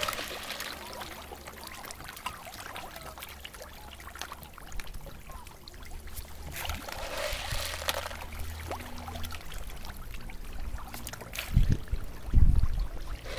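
Water pouring and trickling, with a few loud low thumps near the end.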